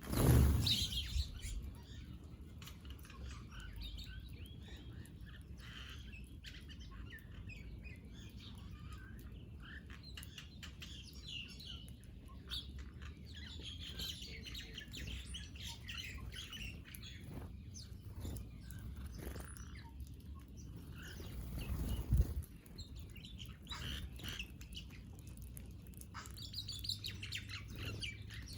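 Small birds chirping and twittering on and off as they feed. A loud low thud sounds right at the start and another about two-thirds of the way through.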